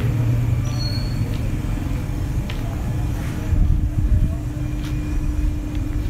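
Steady low rumble of city traffic ambience, with a faint steady hum through the second half and a few light ticks.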